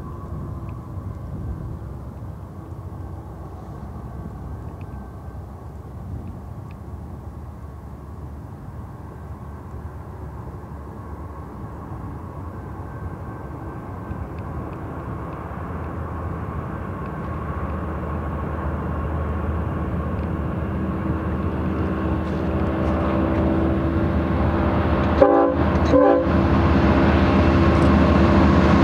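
Lead consist of GE ES44DC diesel-electric locomotives, with their V12 engines working, hauling a double-stack intermodal freight train. The deep engine rumble grows steadily louder as the train approaches. Two brief sharp knocks come about a second apart near the end.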